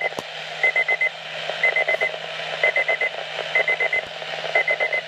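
A weather alert radio's alarm beeping in groups of four quick high-pitched beeps, about one group a second, over a steady hiss; the alarm is set off by a rainfall warning.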